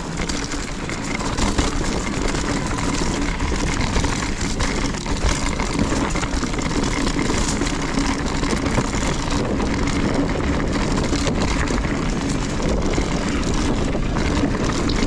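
Wind rushing over the microphone and mountain-bike tyres rolling over a dirt trail at speed, with occasional knocks and rattles from the bike.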